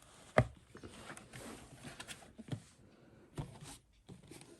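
Hard plastic parts of a bagless upright vacuum's dirt cup and filter being handled. There is one sharp snap about half a second in, then a few softer knocks and some rustling.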